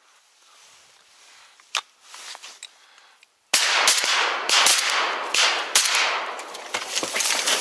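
Shotgun fire at a flying duck: a sudden loud shot about three and a half seconds in, then more sharp cracks over a steady rustling noise.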